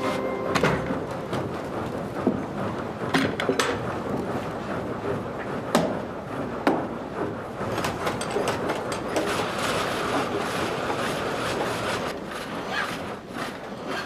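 Old wooden sawmill machinery clattering: gear teeth and a saw carriage knocking and clacking irregularly. Near the end, a hand file rasps over the teeth of a large saw blade.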